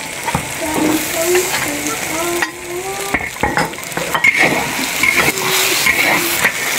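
Meat sizzling as it fries in hot oil, with a spatula repeatedly scraping and knocking against the pan as it is stir-fried.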